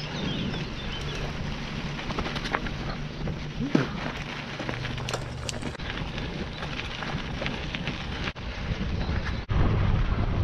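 Bicycle riding over a dirt and gravel track: tyres crunching with small clicks and rattles, and wind rumbling on the microphone. It breaks off twice near the end and comes back louder, with more wind rumble.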